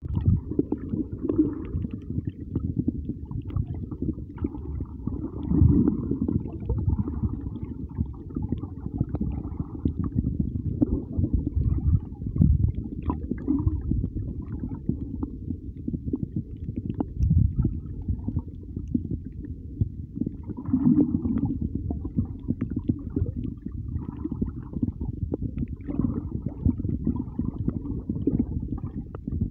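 Muffled underwater sound of moving water, heard with the microphone underwater: a low rumbling and gurgling, with occasional short knocks.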